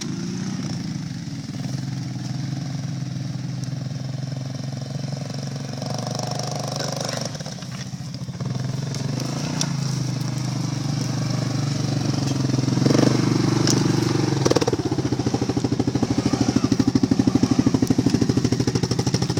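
ATV engine running as the machine rolls over rough ground, with a few scattered knocks; it gets louder and pulses fast and evenly for the last few seconds.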